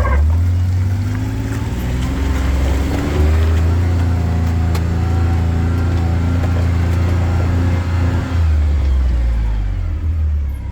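Vehicle engine running steadily while driving, with a strong low rumble. Its pitch climbs over the first few seconds, then holds and shifts slightly near the end.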